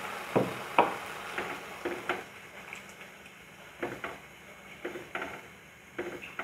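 A spoon stirring watery tomato-cashew gravy in a nonstick kadhai, knocking and scraping lightly against the pan at irregular moments, in two clusters about three seconds apart, as the added water is mixed in.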